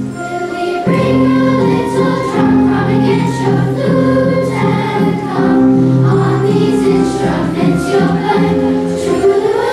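A children's choir singing a song together.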